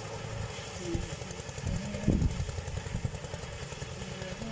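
A small engine running steadily, with an uneven low rumble.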